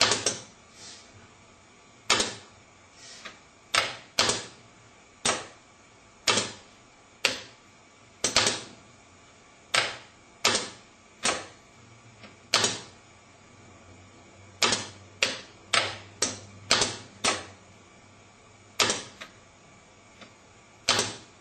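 Five-port two- and three-position solenoid valves (CS-410/420/430 series) switching on a demonstration board: about twenty sharp clicks at irregular intervals, sometimes in quick runs of two or three, each trailing off briefly.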